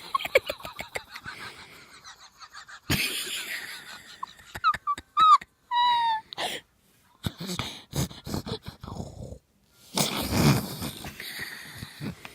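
An animal, likely a dog, making rough wheezing, snorting breaths. Around the middle there are a few short squeaky whines that bend in pitch.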